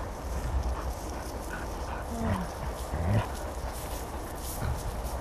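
A dog making two short, low vocal sounds, one falling and one rising in pitch, about two and three seconds in, over a steady low rumble.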